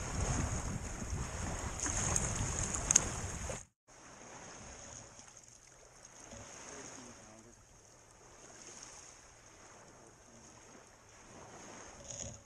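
Wind buffeting the microphone over small lake waves washing onto the shore, loud and gusty at first. A sudden cut a few seconds in gives way to quieter wind and gentle lapping that swells and fades every second or two.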